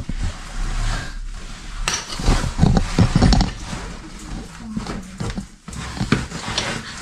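A man breathing hard and grunting with effort while squeezing up a tight cave passage, with irregular scuffs and knocks against the rock.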